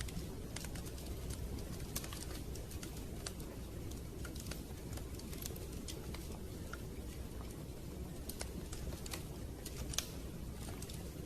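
Wood fire crackling, with irregular sharp pops and snaps several times a second over a steady low rumble. One pop about ten seconds in is louder than the rest.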